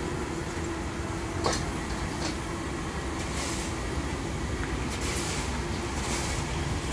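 Battered bananas deep-frying in a large wok of hot oil, sizzling, with a few sharp clinks of metal utensils, the first about one and a half seconds in, over a steady low rumble.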